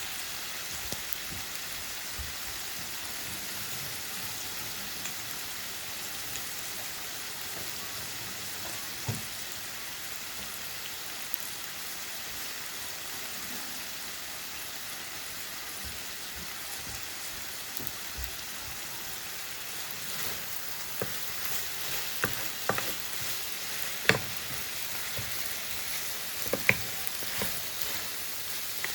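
Yakisoba noodles sizzling steadily as they fry. Over the last third, sharp clicks and scrapes come more often as the noodles are stirred and tossed with a utensil.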